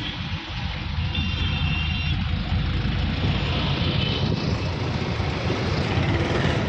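Steady low rumble of road traffic and running diesel truck engines, with a brief high tone about a second in.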